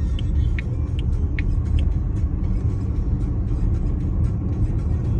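Car driving, a steady low road rumble with a few light ticks in the first two seconds.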